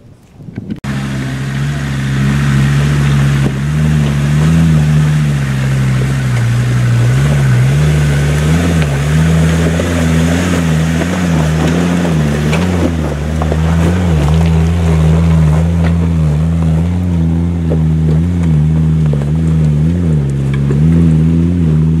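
Land Rover 4x4 engine running steadily at low revs, the pitch rising and falling slightly, over a hiss of noise.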